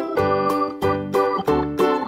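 Background music of short repeated chords, about three a second.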